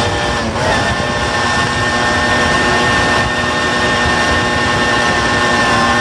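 Tomos 14M moped's two-stroke engine running at steady, high revs under way, with a brief dip in revs about half a second in. Wind rushes over the microphone.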